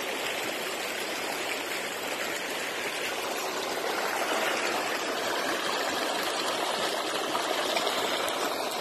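Shallow rocky stream rushing and splashing over rocks and small ledges close by, a steady wash of water with no breaks.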